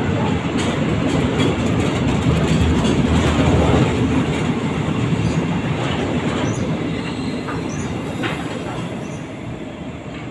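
Freight train of tank wagons rolling past close by: a steady rumble of steel wheels on rail with sharp clicks over the rail joints. It is loudest three to four seconds in and fades as the brake van at the tail goes by near the end.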